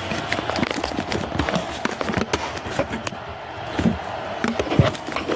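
Irregular light plastic clicks and taps as parts of a toy spider kit are handled and snapped into place.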